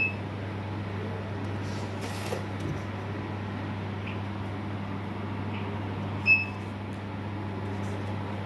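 A steady low electrical hum, with two short high-pitched electronic beeps about six seconds apart.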